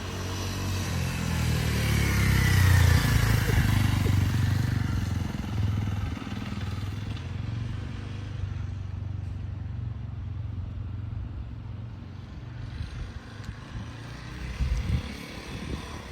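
Motorcycle engine running, loudest about three seconds in and then settling to a steadier, quieter drone.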